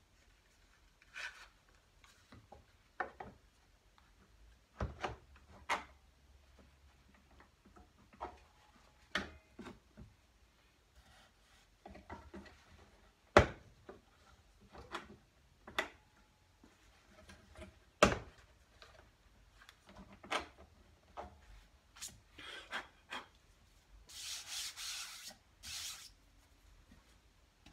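Scattered clicks and knocks of objects being handled and set down on a wooden workbench, with rubbing in between. Near the end comes a short rasping noise in two bursts.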